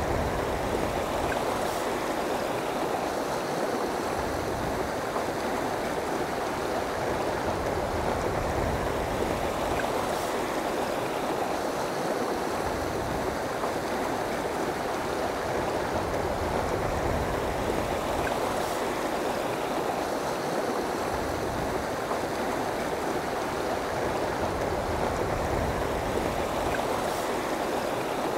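Flowing river water rushing steadily.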